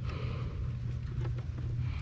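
Steady low rumble, with a few faint clicks and rustles of a cable being pushed through and handled among the wiring inside an inverter's enclosure.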